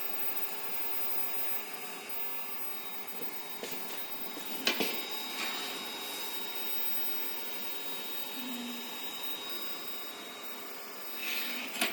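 Steady whirring hiss of a MakerBot 3D printer's fans while the printer heats up, with a sharp click about five seconds in.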